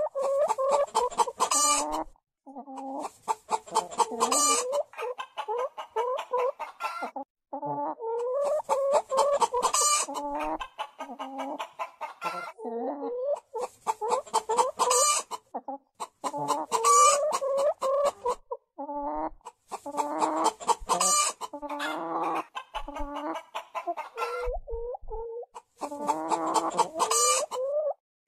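Hens clucking in bouts of rapid calls a few seconds long, broken by short pauses, repeating throughout.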